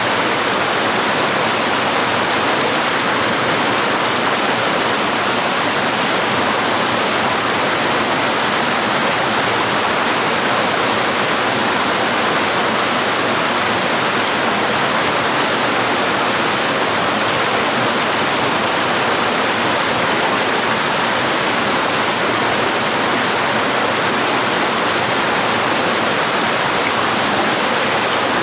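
Waterfall and stream water rushing steadily, a constant even hiss with no breaks.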